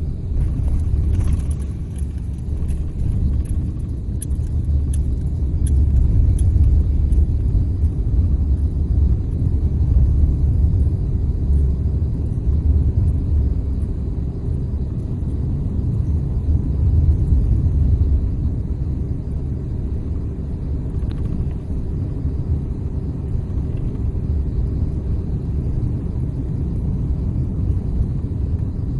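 Steady low rumble of a car driving on a paved road, tyre and engine noise heard from inside the cabin, with a few light clicks in the first several seconds.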